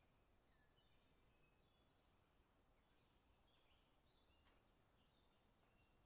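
Very faint garden ambience, close to silence: a steady high-pitched insect drone with scattered faint short bird chirps.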